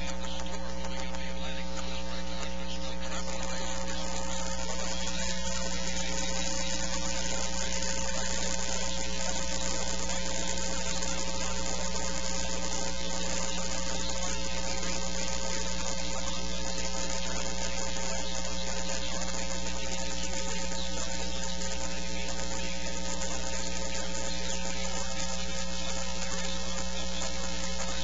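Steady electrical hum and buzz with hiss, unchanging throughout, with no speech or music.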